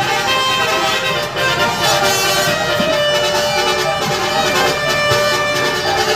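Indonesian bus 'telolet' musical horn playing a tune of held tones. One note is held for about three seconds in the middle.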